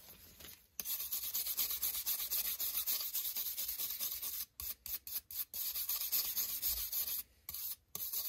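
Brass wire brush scrubbing the steel rule of a Stanley combination square in quick back-and-forth strokes, scouring off rust loosened by an Evapo-Rust soak. The scratchy scrubbing starts about a second in and breaks off briefly twice.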